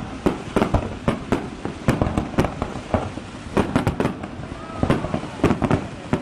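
Fireworks display: a rapid, irregular string of sharp bangs and cracks, several a second, over a continuous low rumble.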